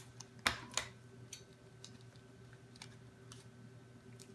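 Small plastic toy packaging handled and opened by hand: two crisp crinkles about half a second in, then scattered light clicks. A faint steady hum sits underneath.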